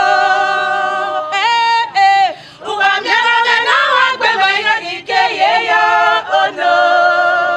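A group of women singing together, with long held notes and some sliding pitches between them.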